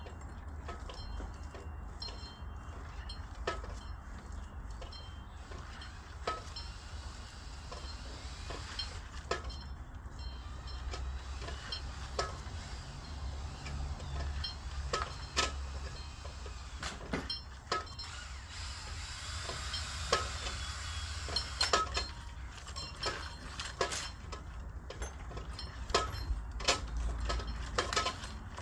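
Irregular light clicks, knocks and small metal clinks, as of parts being handled and fitted, over a steady low rumble. The clicks come more densely in the second half.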